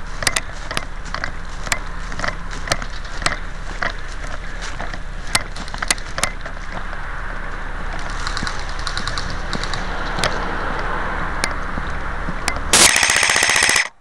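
Airsoft gunfire: scattered sharp single shots, a faint rapid rattle of automatic fire about eight seconds in, then a loud, close full-auto burst lasting about a second near the end that stops abruptly.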